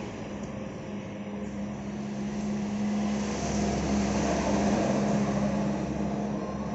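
A steady motor drone holding one pitch, growing louder through the middle and easing off near the end.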